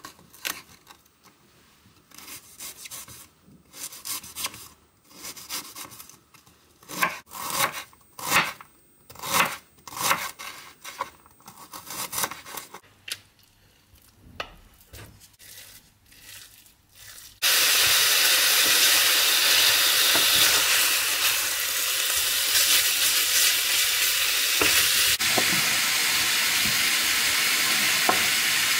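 A kitchen knife cutting through an onion onto a wooden cutting board, a series of irregular chopping strokes. About 17 seconds in, a loud, steady sizzle of minced meat frying in a hot pan starts suddenly and carries on, with a few knife strokes on the board heard under it near the end.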